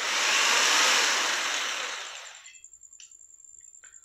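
Handheld electric drill with a step drill bit in its chuck, run briefly with no load: the motor spins up at once, runs for about a second, then winds down over the next second or so. Two faint clicks follow near the end.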